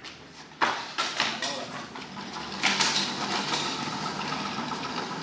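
Clunks and rattling of a snowmobile being shifted about on its dolly stands: three sharp knocks in the first second and a half, then a steadier clatter from about halfway through.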